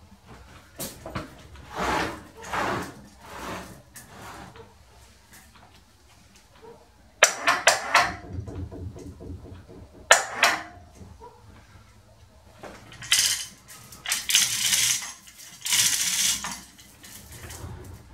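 Steel chain of a hand chain hoist clinking and rattling as a heavy chuck assembly is swung onto a lathe bed, with two sharp metal clanks partway through and several bursts of chain rattle near the end.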